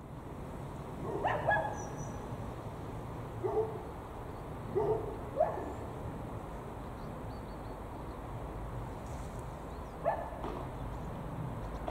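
A dog barking a few times, short barks coming in small clusters at irregular intervals, over a steady low background rumble.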